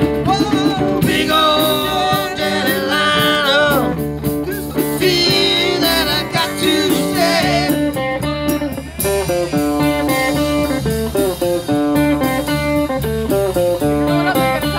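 Live blues music played on guitar, with a voice singing.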